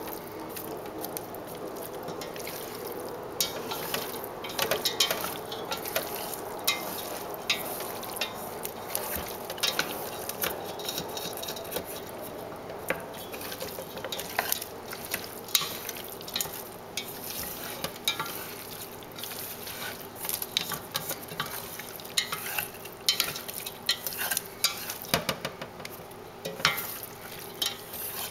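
Wooden chopsticks and a hand tossing raw pork belly, fish steaks and fried tofu in a caramel-sauce marinade inside a stainless steel pot: steady wet squelching, with frequent sharp clicks and taps of the chopsticks against the pot.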